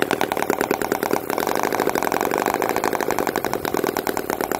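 Miniature V-twin petrol model engine running steadily, a rapid, even stream of firing pulses with a brief dip about a second in. It is probably running a bit rich.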